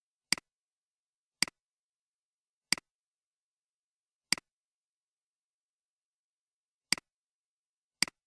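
Computer mouse button clicked six times at uneven intervals, each click a sharp press followed straight away by a softer release.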